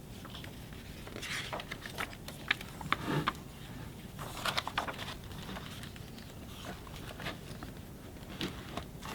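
Quiet paper rustling and soft clicks of a picture book being handled and its pages turned.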